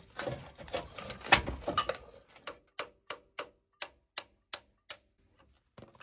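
Metal clattering and knocking as the coil-over strut assembly is worked by hand, then about eight sharp hammer taps at roughly three a second on the lower suspension, knocking the strut free to pop it out.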